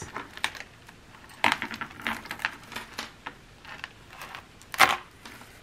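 Costume jewelry clicking and rattling in the hands as a tangled necklace is pulled apart, with a sharp click about a second and a half in and a louder one near the end.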